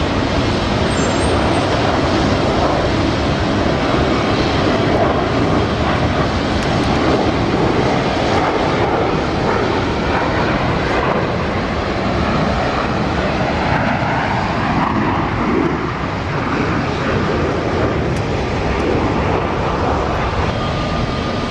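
Twin-engine widebody jet airliner climbing out after takeoff and passing overhead: the steady, loud roar of its jet engines at climb power, with a faint whine near the end.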